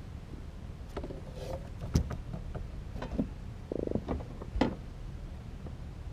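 A few sharp knocks and clicks of gear against a kayak, with a short rapid rattle just past the middle, over a steady low rumble.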